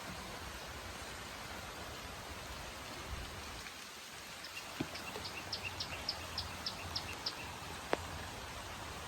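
Steady outdoor hiss, like rain or wind, with a quick run of about a dozen high chirps or ticks partway through and a single sharp click after them.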